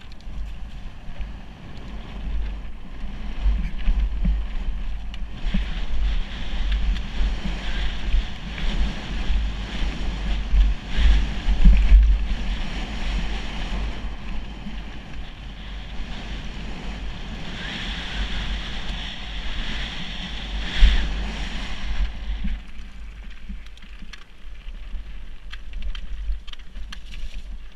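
Wind rumbling on the camera's microphone over the crunch and rattle of a mountain bike riding fast down a loose, stony gravel track. It swells in two stretches, with a sharp knock about two-thirds of the way through.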